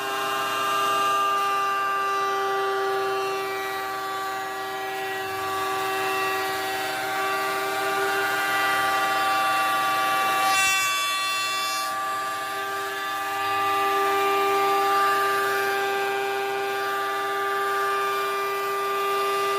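Small router mounted upside down in a router table, running at speed with a steady high-pitched whine. The whine briefly wavers about halfway through, then settles again.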